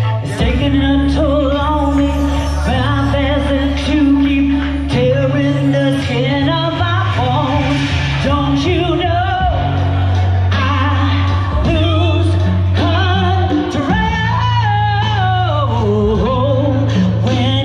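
A woman singing into a microphone over amplified music with a sustained bass line.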